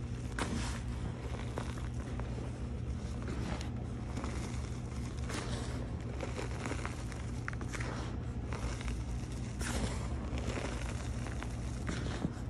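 Gym chalk crumbled by hand and sifting down onto a heap of powder in a bowl: soft, scattered crackles and rustling. A steady low hum runs beneath.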